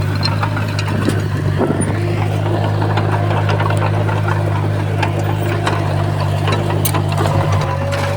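Heavy diesel earthmoving machinery engine running steadily at a constant pitch, with scattered sharp clicks and knocks over it.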